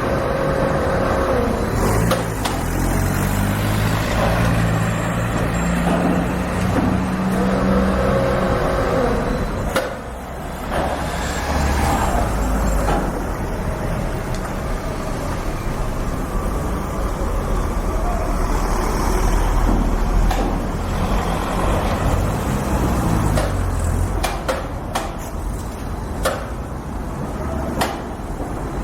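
Street construction site ambience: heavy vehicle engines running and changing pitch over steady traffic noise, with scattered knocks and clanks, several of them close together near the end.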